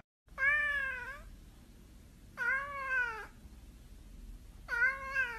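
Domestic cat meowing: three drawn-out meows about two seconds apart, each rising and then falling in pitch.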